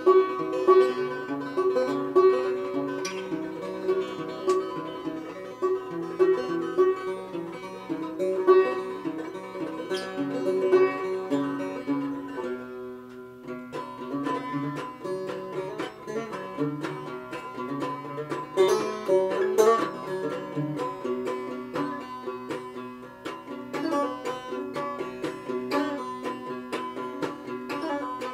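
Five-string banjo played solo: a continuous run of bright picked notes, with a short break about halfway through before the picking resumes.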